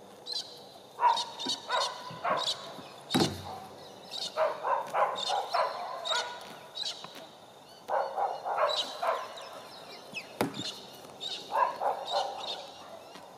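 A dog barking in several short bursts, with birds chirping throughout. Two sharp knocks, one about three seconds in and one near the end.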